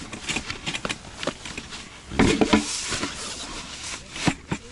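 A sheet of plywood being handled and slid under a folding camp cot's canvas: scattered wooden knocks, scrapes and fabric rubbing, with a louder stretch about two seconds in.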